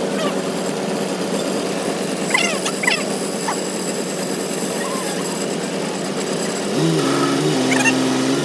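A steady engine hum. About seven seconds in, a second small motor starts and its pitch steps up and down.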